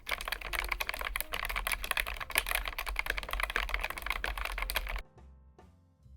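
Fast typing on a Keychron K1 Max low-profile mechanical keyboard with Gateron low-profile switches: a dense run of key clicks that stops abruptly about five seconds in, after which quiet background music with piano-like notes is heard.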